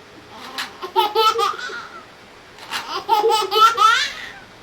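Young children laughing in two high-pitched bouts, each a run of quick giggling pulses, with a short pause between them.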